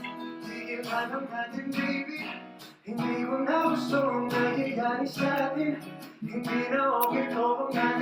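Stripped-down live ballad: a male singer over strummed acoustic guitar, with a short break in the phrase about three seconds in.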